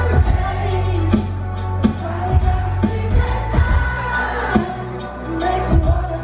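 Live pop music from a concert stage, heard from within the audience: a sung vocal over a band, with a heavy bass and a steady drum beat.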